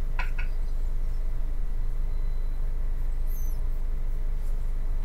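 Steady low hum and static of a police radio scanner feed between transmissions, with a faint click about a quarter second in.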